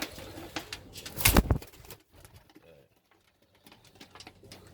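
Domestic pigeons cooing softly, with a short, loud whoosh about a second in. It then goes almost quiet before faint sound returns near the end.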